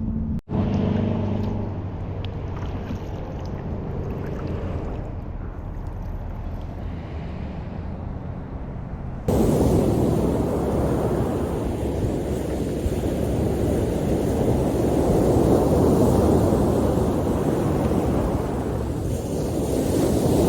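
Outdoor water noise with a low steady hum for the first nine seconds or so, then a sudden jump to loud, rushing ocean surf and wind buffeting the microphone.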